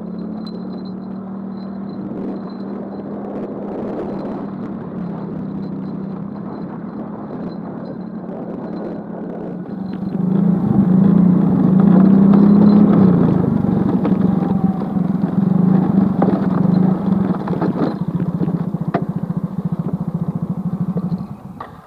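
Small motorcycle's engine running while riding along a rough dirt road, one steady engine note that gets louder and rises slightly about ten seconds in as the bike speeds up, then cuts off near the end.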